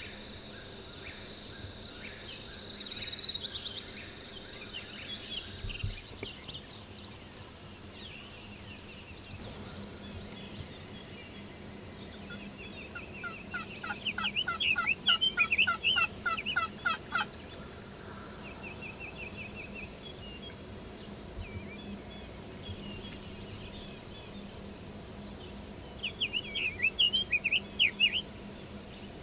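Wild turkey gobbler gobbling, a loud rapid rattling call about halfway through and again near the end, with smaller songbirds chirping and trilling around it.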